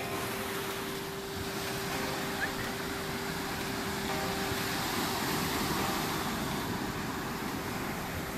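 Sea surf washing on a beach, with wind on the microphone and a steady faint hum underneath.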